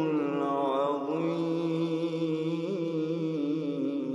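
A man's voice reciting the Quran in melodic chant (tajweed), drawing one syllable out into a long ornamented vowel that turns up and down in pitch, then settling on a steady held note near the end.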